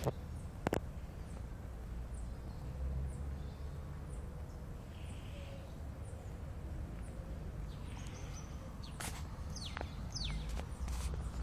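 Outdoor ambience with a low rumble on a phone microphone, a faint high chirp repeating about twice a second, and a few short falling bird calls about nine seconds in. Near the end come rubbing and knocks from the phone being handled.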